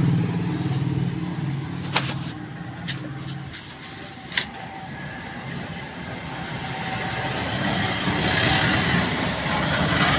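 A motor vehicle engine running with a steady hum that stops about three and a half seconds in, with a few sharp clicks. After that comes a broad rushing noise that swells and fades.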